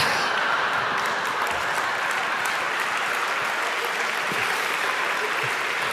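Audience applauding steadily, starting all at once.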